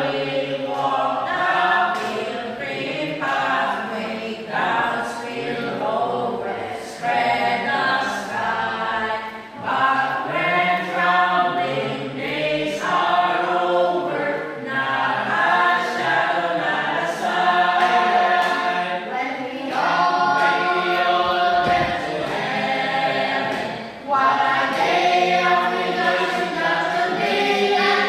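A group of voices singing together, choir-like, with little instrumental backing. The singing goes on throughout, with two short dips.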